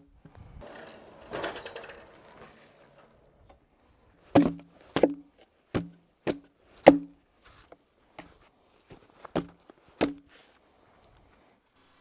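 A brief scraping rustle, then about nine hollow wooden knocks a little over half a second apart, from a heavy log being shifted on wooden cribbing blocks.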